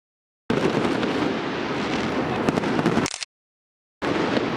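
A fireworks display: a dense, continuous rumble and crackle with scattered sharp pops. The audio cuts to dead silence twice, at the start and about three seconds in.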